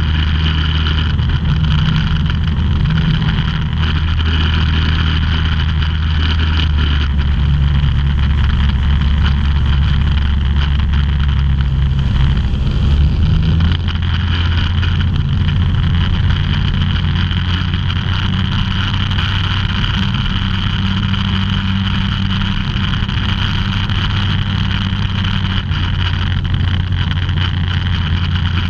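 Microlight aircraft's engine and propeller droning steadily, heard from inside the open-framed cabin, with a constant hiss of air over the airframe. The engine note shifts slightly about halfway through.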